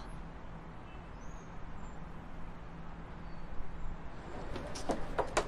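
Quiet steady background ambience with a low hum; from about four and a half seconds, a few sharp footsteps on hard ground.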